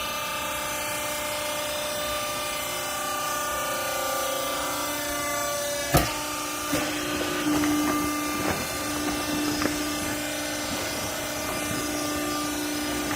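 Hydraulic textile baler's power pack running with a steady hum, a sharp bang about six seconds in, then a few seconds of irregular knocks and rattles.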